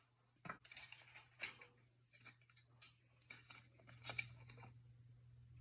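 Faint, irregular clicks and rustles of parts being handled while a refrigerator fan motor is swapped out, over a steady low hum.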